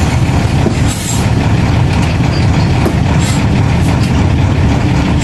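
A converted bus's diesel engine running steadily, heard from inside the driver's cab, with a few short air hisses from the brakes, about a second in and twice more past the middle.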